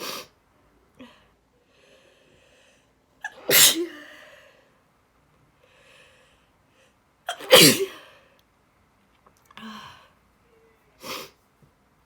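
A woman sneezing: two loud sneezes about three and a half and seven and a half seconds in, each with a quick breath in just before it. Shorter, quieter bursts come at the start and twice near the end, with faint breathing in between.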